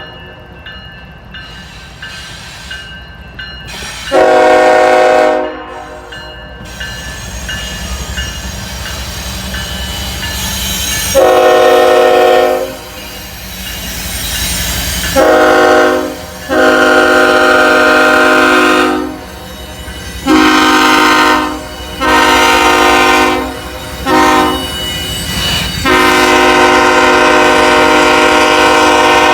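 Locomotive air horn sounding a chord of several notes in a series of blasts, mostly long with one short one, ending with the long, long, short, long grade-crossing signal. A steady low rumble of the approaching train runs underneath.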